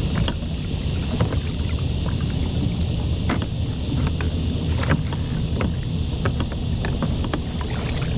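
Water splashing and dripping off a hoop crab net as it is hauled up out of the river beside a kayak, many small sharp drips and knocks. Under it is a steady low wind rumble on the microphone.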